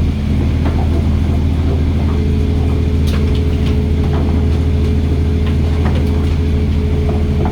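Fishing boat's engine running at a steady drone, with scattered short knocks and clatter over it.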